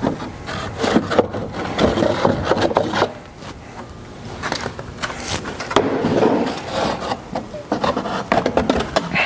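Molded pulp packing being worked out of a Dremel 3D40 3D printer's enclosure: irregular rubbing and scraping with several knocks. It goes quieter for a second or so about three seconds in, then the rubbing picks up again as hands reach back inside.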